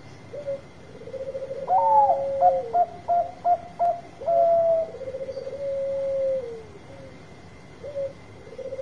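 Zebra dove (perkutut) cooing in repeated phrases: a short lead note, a quick rattling trill, then a long held coo that drops in pitch at the end. A higher run of short, clipped coos overlaps the first phrase, and a new phrase starts near the end.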